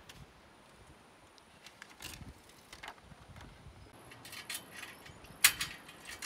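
Scattered metallic clicks and knocks of solar panels being fastened onto roof mounting rails, the sharpest knock about five and a half seconds in.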